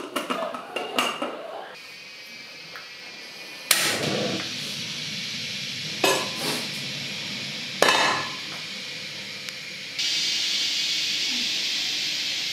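A run of kitchen cooking sounds. First a cleaver and dishes clink and knock on a wooden chopping board. Then a gas stove burner lights with a sudden whoosh and hisses steadily, two sharp metal clanks ring out, and about ten seconds in a steady sizzling hiss starts as cooking oil goes into the hot stainless steel pot.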